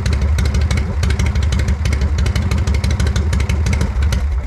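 1981 Harley-Davidson Shovelhead V-twin running steadily with a fast, even mechanical clatter, started without the enricher; it is shut off and stops suddenly at the very end.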